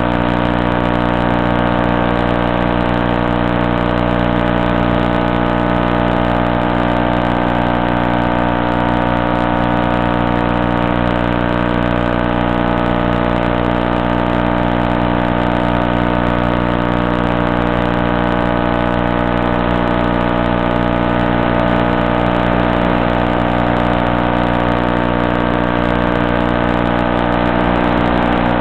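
Electric motor and propeller of a Stratosurfer RC glider running steadily under power as it climbs: an even, unchanging hum made of many steady tones. It is heard through the plane's onboard FPV link, which cuts off the higher sounds.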